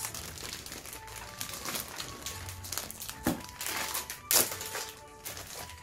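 Plastic packaging crinkling and rustling as a small surprise pack is handled and opened, with a sharp crackle about four seconds in. Light background music plays underneath.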